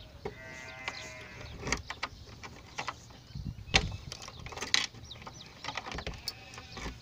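Sharp metallic clicks and taps of a small tool being worked in the keyhole of a brass door lock. Livestock bleats once for about a second near the start and briefly again near the end.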